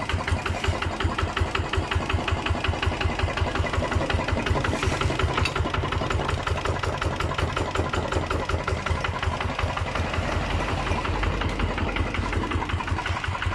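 Kubota diesel engine idling steadily, with an even, rapid knocking beat.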